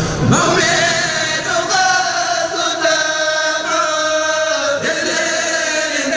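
Male voices chanting an Arabic devotional poem, a Mouride khassaid, in long drawn-out notes that slide from one pitch to the next.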